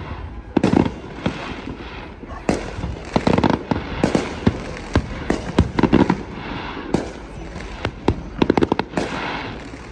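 Fireworks going off: a string of sharp bangs and crackling pops, with a quick rapid run of crackles about eight seconds in.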